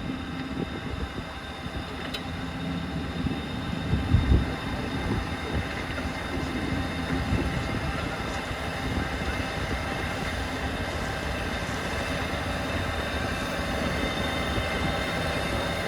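Fendt 728 Vario tractor working a power harrow as it approaches. A steady engine and driveline drone with many held tones over a low rumble, slowly growing louder, with a low thump about four seconds in.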